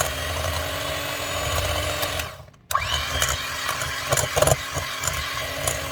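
Electric hand mixer running, beating oil and brown sugar together in a bowl. The sound dies away about two seconds in and comes back abruptly a moment later.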